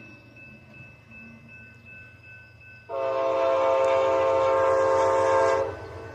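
Train air horn pitched down, sounding one long blast of about three seconds that starts about three seconds in and cuts off sharply. Before it, a low train rumble with a faint steady high tone.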